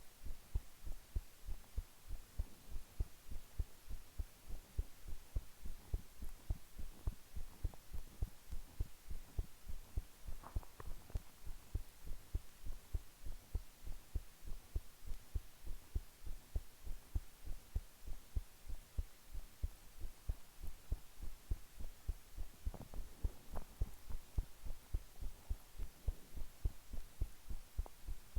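Human heart beating at rest: a steady, regular train of low, dull heartbeats.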